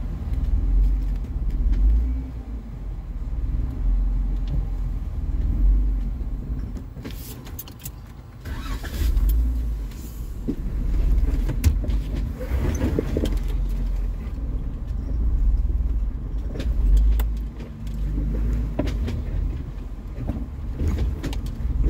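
Jeep Wrangler running at crawling speed over rough off-road ground, heard from inside the cabin. Its deep engine rumble swells and eases every few seconds as the throttle is worked, with scattered knocks and clicks.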